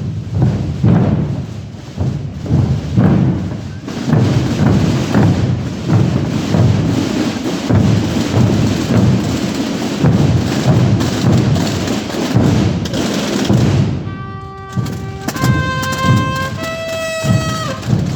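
Many drums, with deep bass drums, beating together in a dense, fast rhythm. Near the end the drumming thins out and a horn plays a few held notes that step in pitch, each about a second long.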